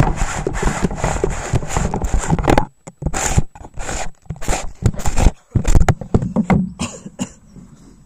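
Handling noise from inside a homemade PVC-pipe camera housing: the camera scraping, rubbing and knocking against the case as it is moved, in a rapid series of loud scrapes that stop about seven seconds in.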